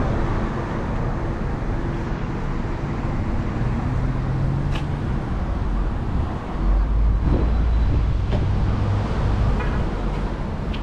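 Outdoor traffic noise with a car engine running, under a deep rumble that grows stronger over the second half. A single sharp click about five seconds in.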